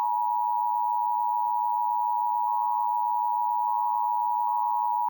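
Emergency Alert System attention signal: a steady two-tone alarm of two pitches sounded together, held without a break and cutting off suddenly at the end. It is the tone that announces an emergency alert, here marking a required monthly test.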